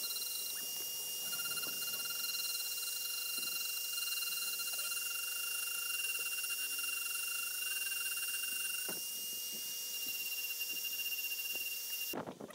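Flexible-shaft rotary tool running with a steady high whine as its burr grinds a steel knife blank; it stops abruptly near the end.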